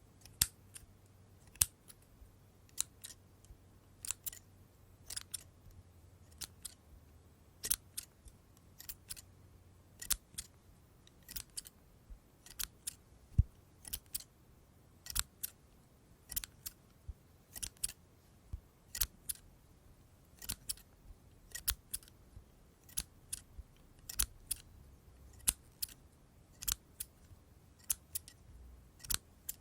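Scissors snipping: crisp blade clicks, often in quick pairs, about one snip a second.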